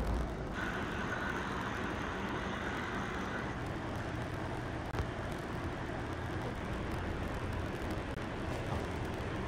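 Steady low hum and hiss of machinery and ventilation inside a passenger ferry, with a faint high whine during the first three seconds and a single faint click about five seconds in.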